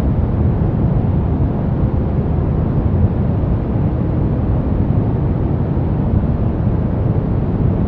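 Soft brown noise: a steady, unchanging deep rumbling hiss, strongest in the low end and dull at the top.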